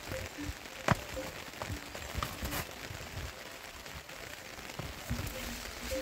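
Horned cattle moving and grazing in wet, leafy vegetation: scattered crackling and rustling with low thuds, and one sharp knock about a second in.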